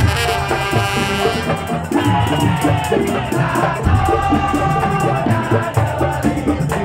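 Madurese daul ensemble playing loud traditional music: a steady beat of low drums with rattling percussion and a pitched melody line over it.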